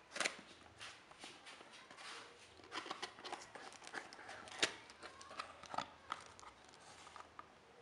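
Cardboard box being opened by hand: faint scraping, rubbing and rustling of the lid and flaps, with scattered clicks, the sharpest just after the start and a little past halfway.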